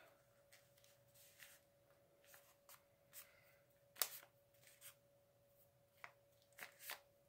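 Faint rustling and light clicks of a paper treat wrapper being folded and pressed closed by hand, the sharpest click about four seconds in.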